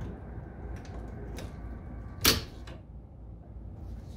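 Dillon 1050 reloading press being cycled, its toolhead coming down: a few light metallic clicks and one sharp, loud clack about two seconds in, over a steady low hum.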